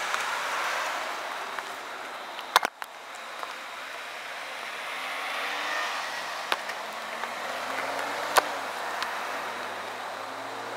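Cars passing on a road, their tyre and engine noise swelling and fading twice. A few sharp clicks cut through, the loudest about two and a half seconds in.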